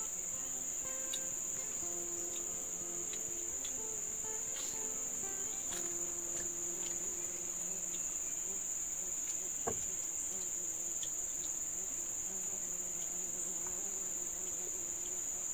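Insects singing in one steady, unbroken high-pitched drone, with a few faint ticks and clicks over it.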